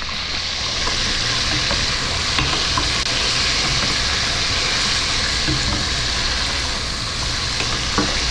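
Flour-coated chicken pieces deep-frying in hot oil in a stainless steel pot: a steady loud sizzle, with a slotted spoon stirring the pieces and a light clink against the pot near the end.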